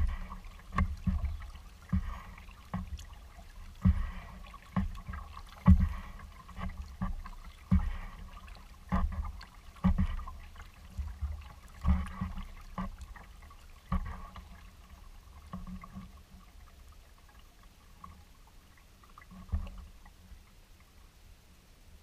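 Kayak being paddled on calm water: a dull knock carried through the hull about once a second with each paddle stroke, with water dripping and trickling off the paddle. The strokes stop a little past halfway, leaving a single knock near the end.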